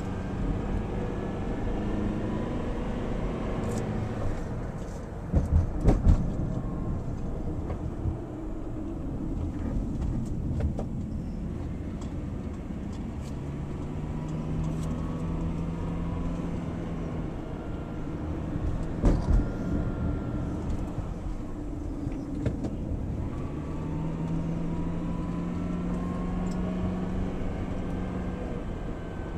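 Car engine and road noise heard from inside the cabin while driving a winding mountain road, the engine note rising and easing off in long stretches. A few short thumps stand out, about six seconds in and again around two-thirds of the way through.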